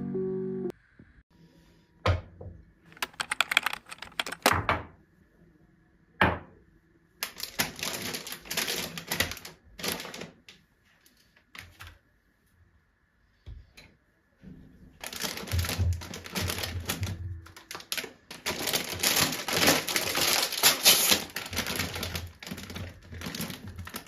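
Crinkling, crackling handling sounds in irregular bursts separated by short pauses, the longest run in the second half.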